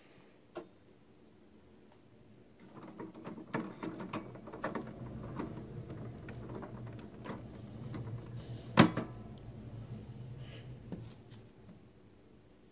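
Plastic clicks, knocks and rattles of HP 652 inkjet cartridges being handled in the HP DeskJet printer's cartridge carriage, with one sharp snap about nine seconds in. A single click comes shortly after the start, and the handling noise dies away near the end.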